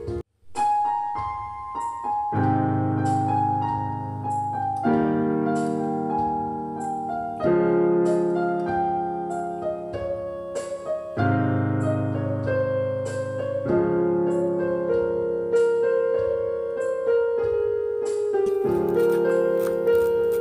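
Background piano music, with held chords that change every couple of seconds under a melody. It cuts out briefly just after the start.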